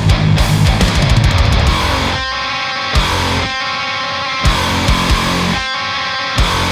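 Heavy metal song with high-gain distorted electric guitars through a Diezel VH4 tube amp and programmed drums. A fast, dense riff gives way about two seconds in to held, ringing chords punctuated by a few separate drum hits.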